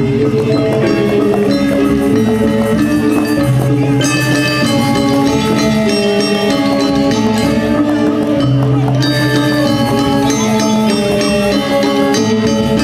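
Balinese gamelan playing: bronze metallophones struck with mallets in quick stepping melodic notes over long held low tones.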